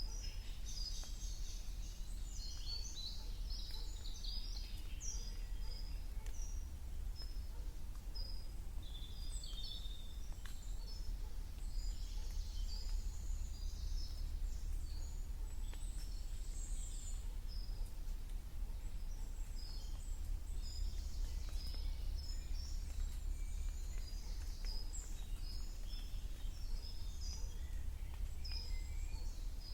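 Several wild birds chirping and singing, many short high notes overlapping, over a steady low rumble.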